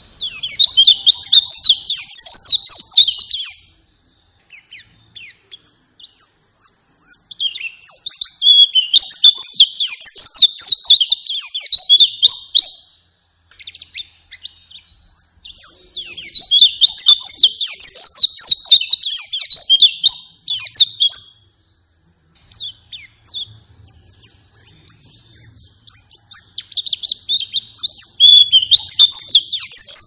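White-eye (pleci) song: fast, high twittering phrases delivered in four long bouts of several seconds each, with short pauses between them.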